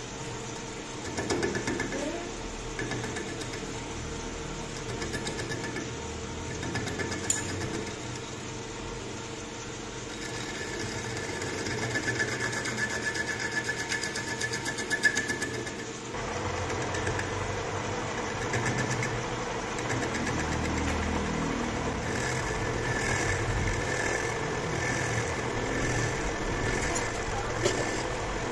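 Metal lathe running, its chuck spinning a metal workpiece while a cutting tool turns it, a steady mechanical whir with a faint whine. The sound changes a little past halfway.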